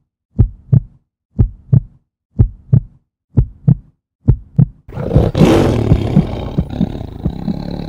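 Intro sound effects: five heartbeat-like double thumps about a second apart, then a loud roaring swell as a treasure chest opens.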